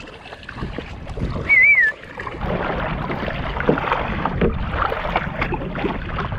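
Water splashing and sloshing around a kayak on the open sea as it moves along, a steady wash of small splashes that grows louder a couple of seconds in. A short wavering whistle-like tone sounds about a second and a half in.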